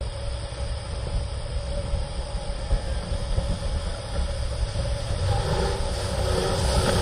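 Twin diesel engines of a 47-foot motor lifeboat running under way through heavy surf, mixed with wind buffeting the microphone and the rush of water, growing a little louder toward the end.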